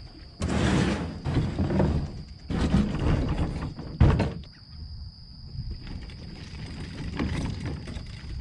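Handling noises: two stretches of rustling and scraping, then a sharp knock about four seconds in, followed by quieter background.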